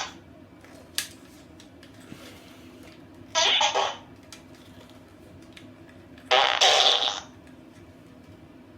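Electronic toy playing recorded fart noises: a click about a second in, then two short farts under a second each, about three seconds apart.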